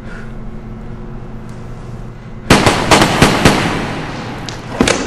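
Pistol shots echoing in a large empty hall: a rapid string of about six about two and a half seconds in, then one more shot near the end.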